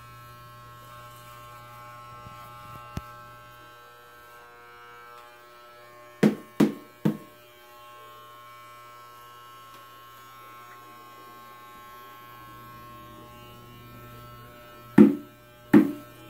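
Corded electric hair clipper fitted with a guard comb, running with a steady buzz while held against a child's head to cut his hair. Three short, loud sounds come about six seconds in, and two more near the end.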